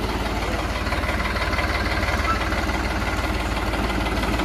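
New Holland 3630 tractor's three-cylinder diesel engine idling steadily.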